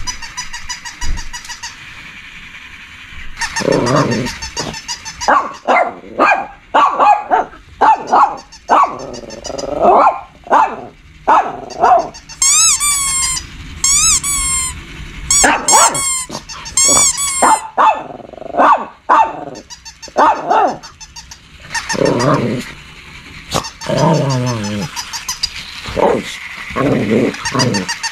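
A Shih Tzu barking again and again in short, sharp barks, with growling between them, as it play-fights with stuffed toys. About halfway through there is a run of high, sweeping squeals.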